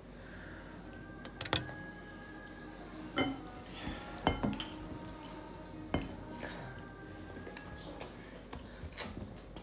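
Scattered clinks and knocks of children's spoons, plastic bowls and a plastic sippy cup against a glass tabletop, about six sharp ones, some with a brief ring after.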